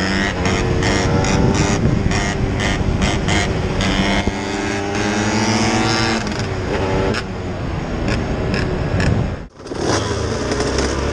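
Two-stroke 125 cc motorcycle engines, the Aprilia RS 125 carrying the camera and the KTM EXC 125 riding ahead, revving hard and climbing in pitch through the gears, over heavy wind rush on the microphone. The sound cuts out for an instant about nine seconds in, then an engine runs at low revs.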